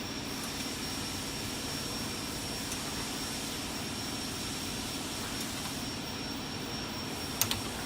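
Steady background hum with a constant faint high whine, and two quick sharp clicks near the end as an inch-pound torque wrench is pulled on a connecting rod bolt toward 170 inch-pounds.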